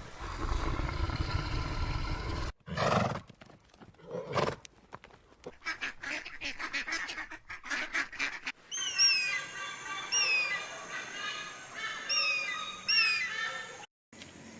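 Farm animal sounds in several short cuts, ending with farmyard fowl giving repeated short calls that slide down in pitch, about one a second.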